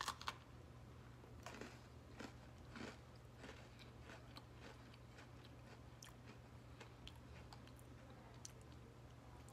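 A bite into an Oreo sandwich cookie right at the start, then faint, irregular crunchy chewing of the cookie.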